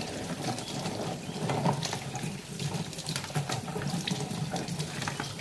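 Tap water running into a stainless steel sink while plastic food boxes, lids and plates are rinsed by hand, with scattered small clinks and knocks of the dishes.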